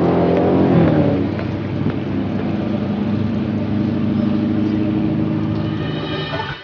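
An engine running steadily, with a low even hum that stays at one pitch, cutting off suddenly at the end.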